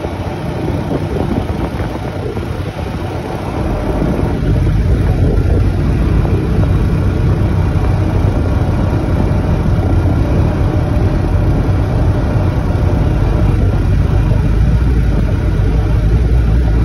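Vehicle driving down the road, heard from inside the cab: steady engine and road rumble that grows louder about four seconds in and then holds.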